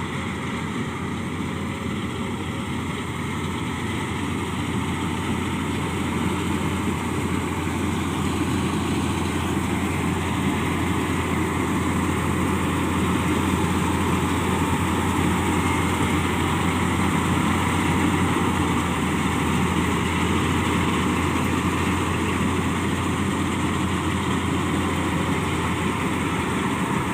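Combine harvester's engine and threshing machinery running steadily with a heavy low drone, growing a little louder over the first half.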